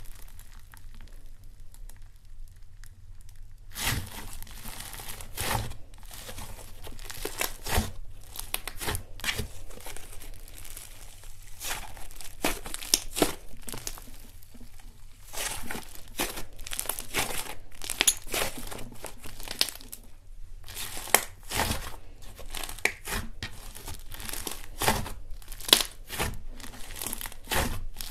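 Hands pressing, squeezing and pulling apart a lump of white fluffy slime, which crackles and tears with many sharp pops. The crackling starts about four seconds in, after a quiet start.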